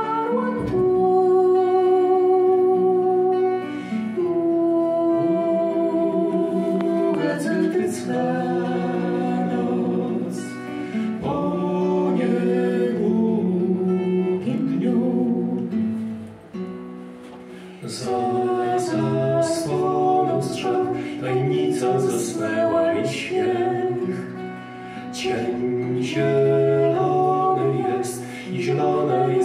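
A folk song performed live: a woman singing with vibrato over a steel-string acoustic guitar. The singing eases off briefly about halfway through.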